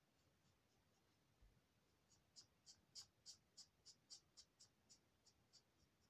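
Faint scratching of an Action Twinmarker alcohol marker's felt tip stroked over paper in short, even strokes, about three a second. The strokes start about two seconds in and fade near the end.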